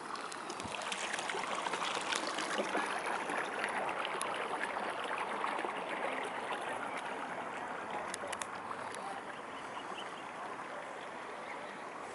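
Rustling and crackling of tall goldenrod stems and leaves brushing past, busiest in the first half and easing off after about seven seconds.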